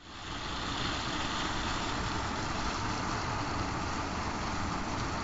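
A Volkswagen Taigo compact SUV driving at steady speed on asphalt: an even hiss of tyre and wind noise over a low rumble, with no revving.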